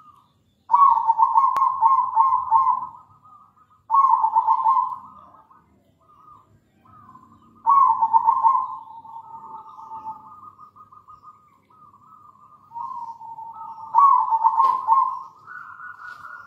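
Zebra dove (perkutut) cooing: four loud bouts of rapid, rolling coos, with quieter coos in the gaps between them.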